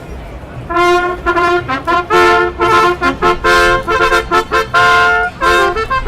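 A solo trumpet playing a bugle-call fanfare: quick runs of short notes broken by a few held ones, over a low rumble.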